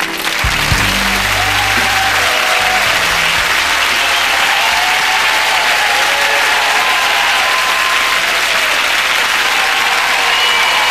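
Studio audience applauding, starting as the song's last notes end, with the band's final low chord ringing out under the clapping for the first few seconds.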